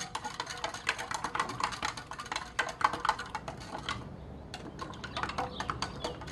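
A spoon clinking rapidly against the inside of a drinking glass as a cherry drink mix is stirred into water, with many quick ticks a second and a short pause about four seconds in.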